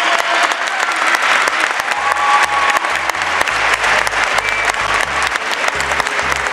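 Audience applauding with dense, steady clapping over background music. A pulsing bass line comes in after about a second.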